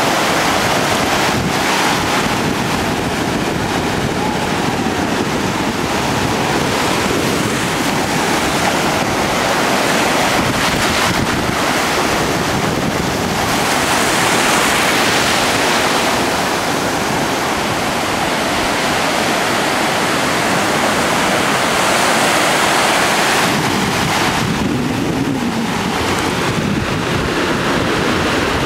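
Small ocean waves breaking and washing up the sand in shallow surf, a steady rush of water that swells louder twice as bigger waves run in, with wind buffeting the microphone.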